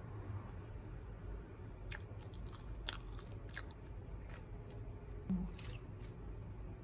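Crunchy bites and chewing on a fried Korean mozzarella cheese corn dog, its crisp coating crackling in short bursts. A soft low thump about five seconds in is the loudest sound.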